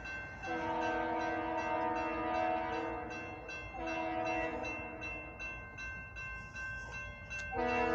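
Approaching freight locomotive's air horn sounding for the grade crossing: a long blast, a shorter one, and another starting near the end. A crossing bell rings steadily underneath as the gates come down.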